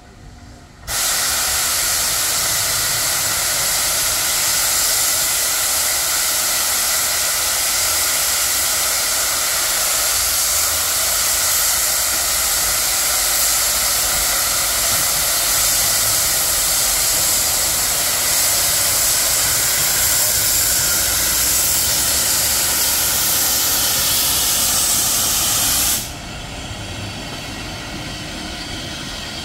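Steam locomotive blowing off steam: a loud, steady hiss that starts suddenly about a second in and cuts off sharply near the end, typical of the boiler's safety valves lifting at full pressure.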